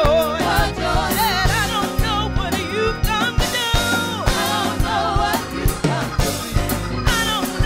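Gospel choir singing, with lead singers on handheld microphones over the full choir, backed by a band with a steady drum beat.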